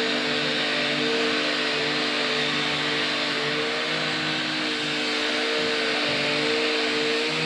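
A steady mechanical hum with a held, slightly wavering tone over an even hiss, unchanging throughout.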